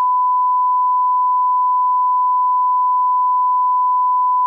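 Steady 1 kHz line-up test tone, a single unbroken pure beep played with colour bars.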